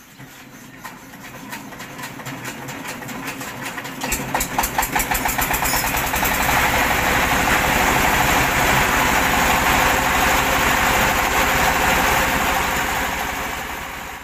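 Single-cylinder diesel engine on a rice mill being hand-cranked, the chugging quickening until it fires about four seconds in. It then runs fast and even, with the mill's loud, steady rushing noise on top, and fades out near the end.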